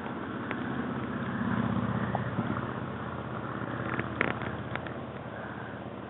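Footsteps and rustling through tall dry grass and brush, with a sharp click about four seconds in.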